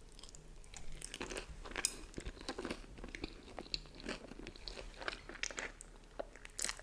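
A person chewing a mouthful of crunchy food close to the microphone, with many irregular crunches.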